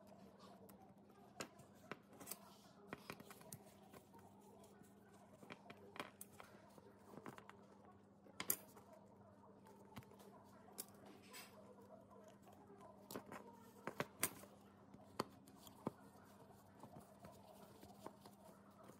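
Faint, scattered metal clicks and scrapes of small hand tools picking and prying at a small rusty stove fuel-valve body, the sharpest click about eight and a half seconds in and a quick run of clicks near two-thirds of the way through, over a faint steady hum.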